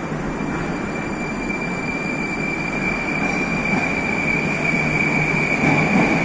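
Moscow Metro train at the platform pulling out: a steady rumble with one steady high squeal, growing gradually louder.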